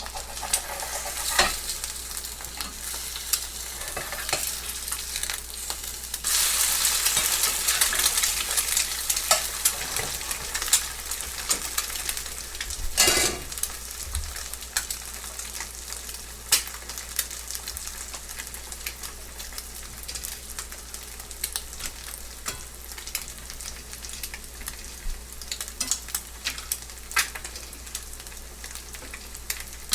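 Two eggs frying in a hot pan: a steady sizzle with crackling pops. The sizzle swells louder about six seconds in, eases after about ten, and there is one brief louder burst near the middle.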